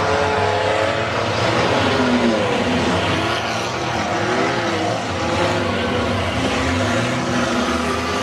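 Engines of several enduro race cars revving as they race round a dirt track, overlapping engine notes rising and falling in pitch as the cars accelerate, lift off and pass.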